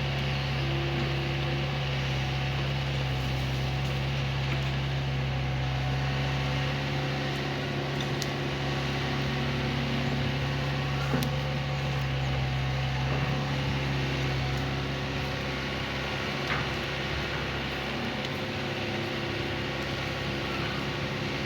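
Hydraulic excavator's diesel engine running at a steady pitch, with a couple of short sharp knocks about halfway through and again a few seconds later.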